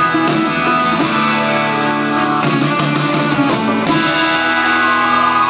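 Live band with electric guitars playing loud held chords, changing chord about two and a half seconds in and again about a second and a half later.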